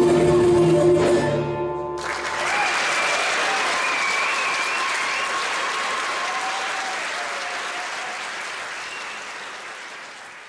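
A trio of long-necked lute, cello and frame drum ends a piece on held notes. About two seconds in, audience applause takes over with a few cheers above it, then slowly fades away.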